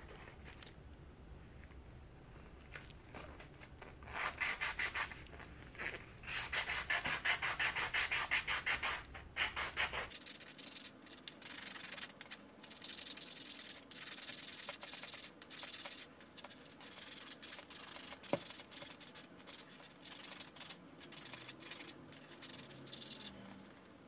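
A #400-grit mesh sanding sheet rubbed over an aluminium bottle-can to strip its painted coating, in rapid back-and-forth strokes. The sanding comes in runs with short pauses and starts about four seconds in.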